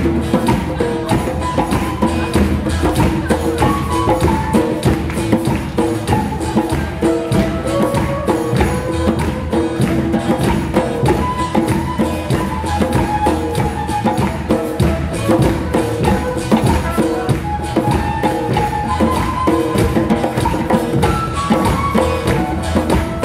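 Group of hand drums played together in a steady, busy rhythm: congas and a djembe slapped by hand and a large drum struck with mallets, with a stepping melody line above the drumming.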